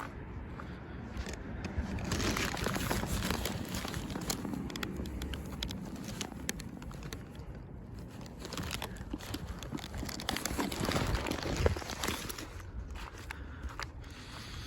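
Footsteps crunching on snow, a steady run of small crunches, with two longer swells of louder hissing noise partway through.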